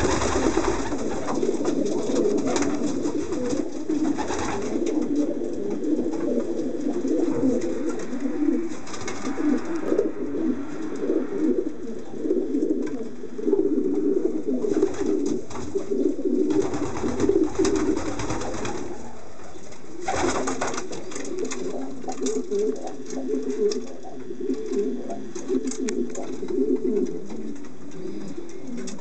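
A flock of racing pigeons cooing inside their loft: many low, overlapping coos running continuously, with a few brief noisy rustles among them.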